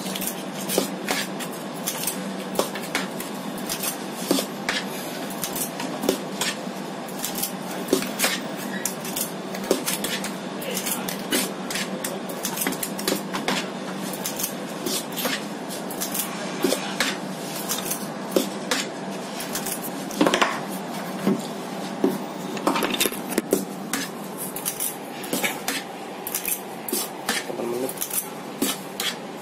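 Metal disher scoop clinking and scraping against a stainless steel bowl while scooping chocolate cupcake batter, with frequent irregular sharp clicks. A steady low hum runs underneath.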